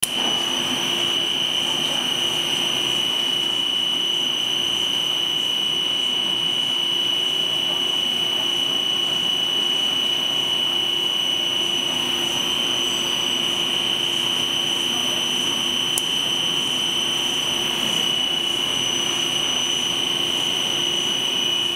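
Snack pellet extruder and its die-face cutter running steadily: a continuous machine drone with a constant high-pitched whine over it.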